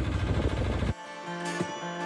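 A low rumble of wind and the narrowboat's engine runs until about a second in, then cuts off abruptly. Acoustic guitar background music takes over.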